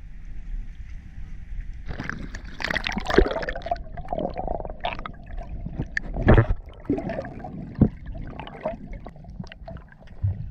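Sea water splashing and gurgling around a diver going under the surface, with bubbles and sharp knocks, starting about two seconds in; before that a low wind rumble.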